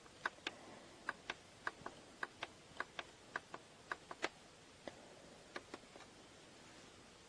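Small clicks in quick pairs, like a plastic button pressed and released, about nine pairs coming a little under twice a second, then stopping about six seconds in.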